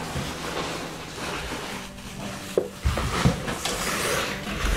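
Rubbing and knocking handling sounds, with a few low thumps about three seconds in.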